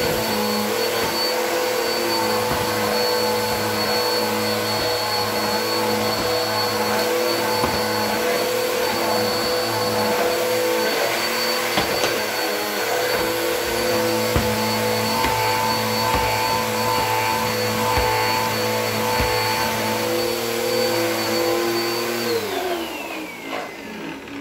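Bissell vacuum cleaner running steadily with a few light knocks, then switched off near the end, its motor whine falling in pitch as it winds down.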